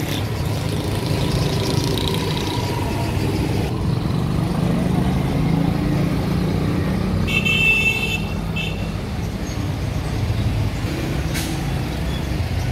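Street traffic: a steady low rumble of passing cars and motorcycles, with a brief high-pitched sound about seven seconds in.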